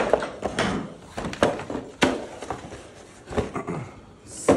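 Cardboard box being closed and moved around by hand: a string of soft knocks and rustles, with a sharper knock near the end.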